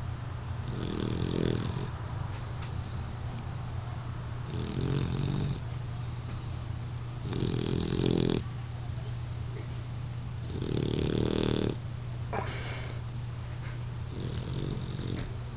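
A puppy snoring in its sleep, with a snore on each breath every few seconds, six in all, over a steady low hum.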